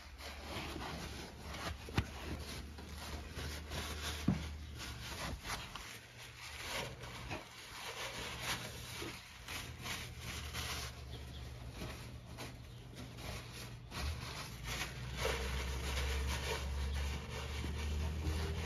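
Cloth rag wiping and rubbing around the truck's oil filter housing during cleanup: irregular scrubbing and rustling strokes with a few light knocks, over a steady low hum that grows louder in the second half.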